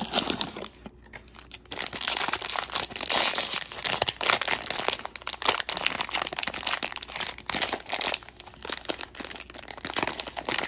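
A cardboard blind box is pulled open, then a thin plastic wrapping bag crinkles and rustles almost without a break from about two seconds in, as a small figure is unwrapped.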